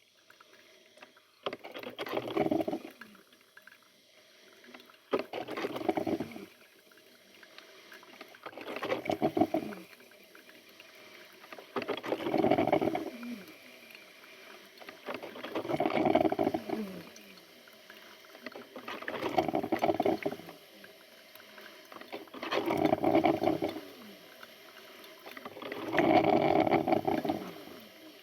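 Electric coffee maker gurgling as it brews, in regular bubbling bursts about every three and a half seconds, eight in all, each lasting a second or two.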